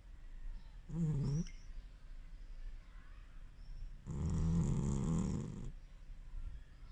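A sleeping pet snoring: a short snore about a second in, then a longer, louder snore lasting about a second and a half a few seconds later.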